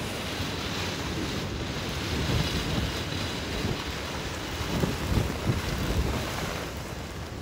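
Wind gusting over the phone's microphone: a steady rushing hiss with low, irregular buffeting that swells about two seconds in and again about five seconds in.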